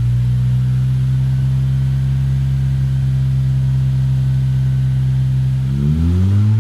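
2018 Honda Civic Hatchback Sport's 1.5-litre turbocharged four-cylinder idling steadily through a Magnaflow 19373 cat-back exhaust with black chrome tips, then revving up near the end.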